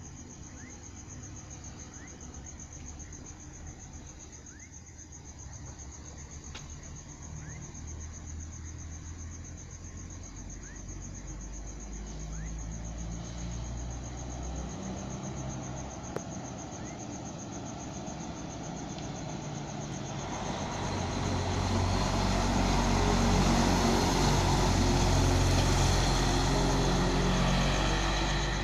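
Mercedes-Benz O500 RSD coach's diesel engine rumbling loudly, growing steadily louder through the first two-thirds and loudest near the end, with its engine note shifting in pitch several times along the way.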